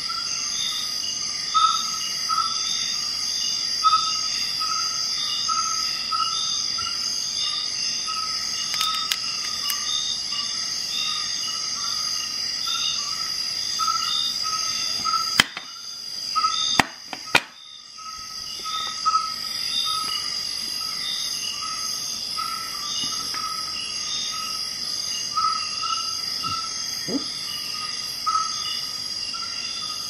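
Insect chorus: steady high-pitched trilling with a pulsing chirp repeating about twice a second. About halfway through, a few sharp clicks sound as the chorus briefly drops out.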